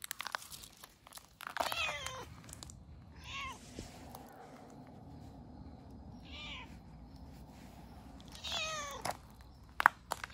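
Stray cats meowing four times: two longer meows, one about a second and a half in and one near the end, with two shorter, fainter meows between. A sharp click comes just before the end.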